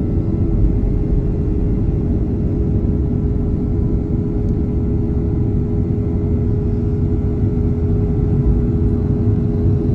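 Boeing 737-800's CFM56-7B turbofan engines at climb power after takeoff, heard inside the cabin beside the wing: a loud steady rumble with a few constant humming tones over it.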